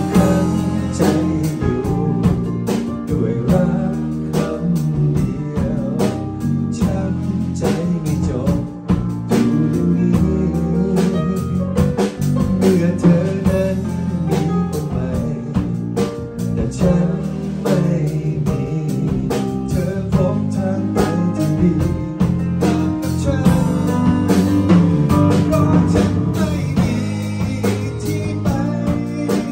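Live band playing a song on drum kit, electric bass and keyboard, with a man singing into a microphone.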